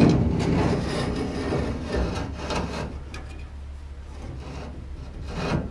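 Steering column shaft and its outer tube being pulled out of a 1967 VW Beetle, metal scraping and rubbing as they slide free, with a few knocks. The scraping is loudest in the first couple of seconds.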